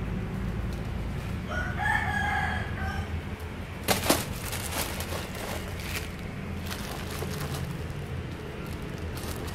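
A rooster crows once, a pitched call lasting about a second and a half. About four seconds in there is a short cluster of sharp crackles and knocks, the loudest moment, over a steady low hum.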